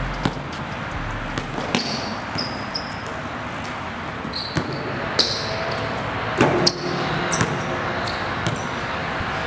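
Basketball bouncing on a concrete court, irregular single thuds, with a sharper cluster of hits about six and a half seconds in.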